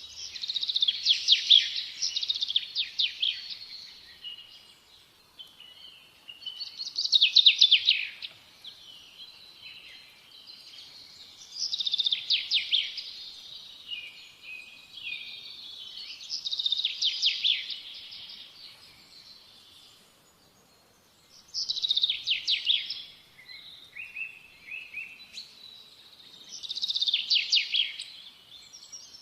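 A small songbird singing, repeating a high song phrase about every five seconds; each phrase is a quick run of sharp notes lasting a second or two, with softer chirps in between.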